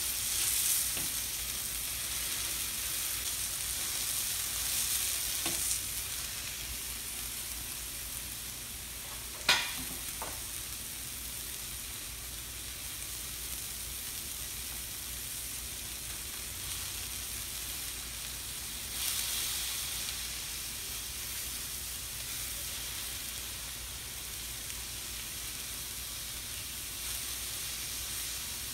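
Skirt steak sizzling on a flat stainless-steel teppanyaki grill plate, a steady frying hiss that swells in the first few seconds and again about two-thirds of the way through. A single sharp click stands out about nine and a half seconds in.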